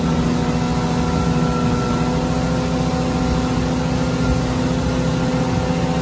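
Motorboat under way: its engine holds a steady drone over a constant rush of water and wind.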